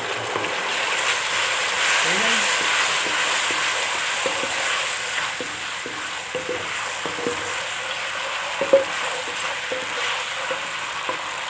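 Ketchup sizzling in hot ghee in a karahi, stirred and scraped with a wooden spatula. The spatula clacks against the pan in the second half, once more sharply about three quarters of the way through.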